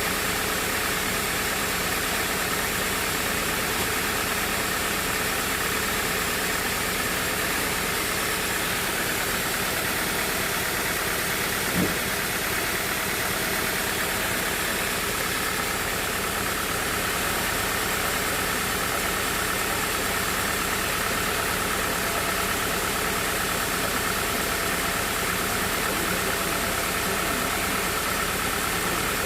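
Sawmill machinery running steadily, with one brief knock about twelve seconds in.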